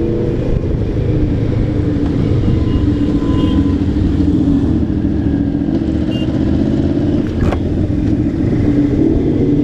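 Kawasaki ER-6n's parallel-twin engine running at steady, fairly low revs in city traffic, heard from on the bike over a low rumble of wind and road noise. A single sharp click comes about seven and a half seconds in.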